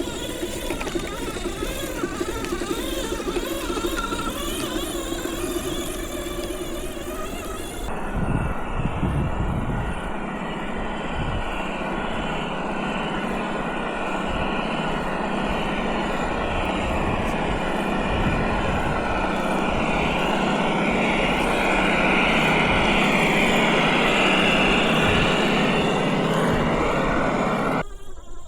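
Simulated engine sound from a GT Power sound module, played through the small speaker of an RC Toyota FJ40 crawler, mixed with the whir of the crawler's electric drive. The engine note rises and falls as the throttle changes. The sound changes character abruptly about eight seconds in and stops shortly before the end.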